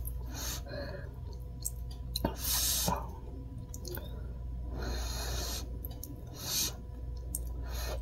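Breath blown in short airy puffs onto hot ramen noodles held up on chopsticks, to cool them; the longest blow comes about two and a half seconds in.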